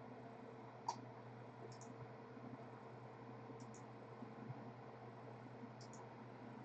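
Computer mouse clicks, faint: one sharper click about a second in, then quick double clicks every couple of seconds, over a low steady hum.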